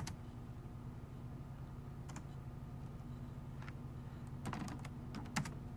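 A few scattered computer keyboard keystrokes: one at the start, a faint one about two seconds in, and a short cluster near the end. Underneath is a steady low hum.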